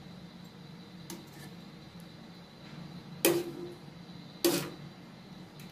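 A steel ladle knocks against the wok as curry is scooped out: a faint tap about a second in, then two loud clinks about a second apart, each with a short metallic ring.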